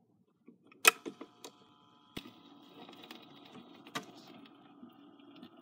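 Record player starting up: a sharp mechanical click about a second in, then several smaller clicks and knocks as the 45 RPM single gets turning. The motor then runs with a faint steady whine, with another click or two before the music starts.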